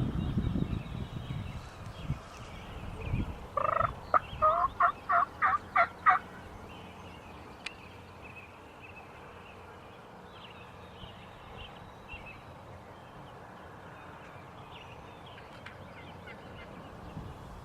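Wild turkey gobbling: one rapid, rattling gobble of about eight quick notes lasting a couple of seconds, a few seconds in. Faint songbird chirps sound in the background.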